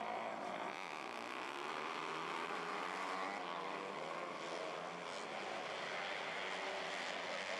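Several 250cc micro sprint car engines running together, their pitch wavering up and down as they rev and ease off.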